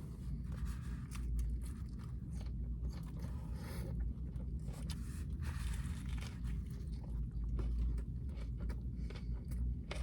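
Close-up mukbang eating sounds: biting into a taco and chewing, with irregular crunches and soft wet clicks.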